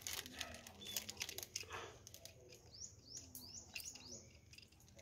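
Quiet handling of a metal faucet valve: small clicks and scrapes as its handle and cap are turned. About two and a half seconds in, a bird gives a quick run of five high chirps.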